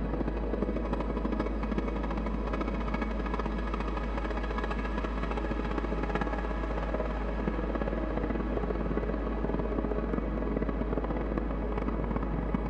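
Live electronic music: a dense, steady droning texture with a rapid flutter running through it and no clear beat.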